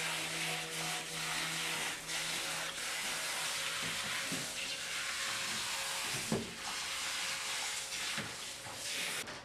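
Handheld shower head spraying water through a wet dog's long coat, a steady hiss as the conditioner is rinsed out. A low steady hum runs underneath and stops about four seconds in, and a few soft knocks come later.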